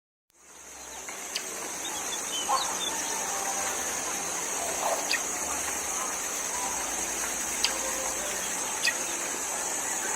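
Woodland ambience fading in: a steady high-pitched insect buzz with a handful of short bird calls and chirps scattered over it.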